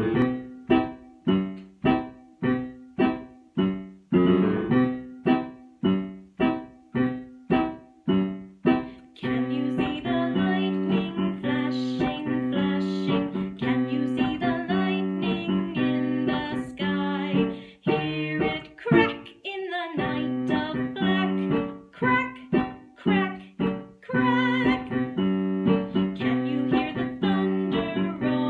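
Music: pitched chords struck in a steady rhythm about twice a second, turning into a fuller, continuous passage about nine seconds in.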